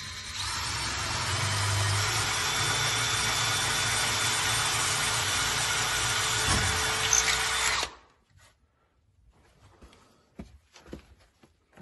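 DeWalt brushless cordless drill running steadily for about eight seconds, boring into a wooden door to fix a door-knob hole that was cut wrong, then stopping. A few light clicks and handling knocks follow.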